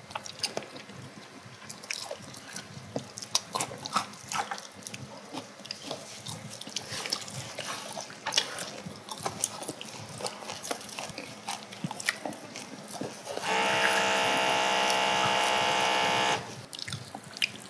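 Eating sounds from a meal of braised pigs' feet (jokbal) and noodles: quiet chewing and short clicks of chopsticks against dishes. Near the end, a loud, steady buzzing tone holds for about three seconds, then cuts off.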